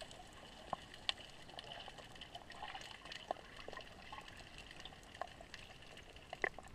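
Underwater sound picked up by a submerged camera in the sea: faint bubbling with scattered small clicks and crackles over a steady high hiss.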